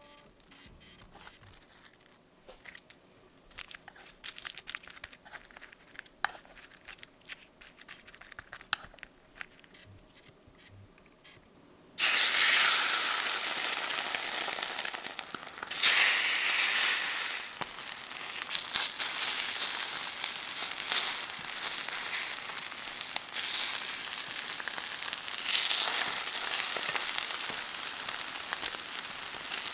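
Sheets of seasoned laver (gim) crinkling and crackling in the hands as they are stacked. About twelve seconds in it cuts to oil sizzling steadily as egg-and-chive-coated laver fries in a stainless steel pan, with a louder surge a few seconds later.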